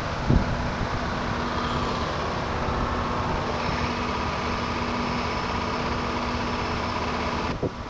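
Long-tail boat engine running steadily at cruising speed with a constant drone; the sound cuts off abruptly near the end.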